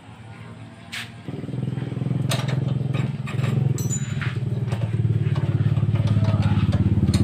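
A small engine or motor starts about a second in and runs steadily with an even pulse, growing a little louder. A few clicks and knocks come from hand work on metal.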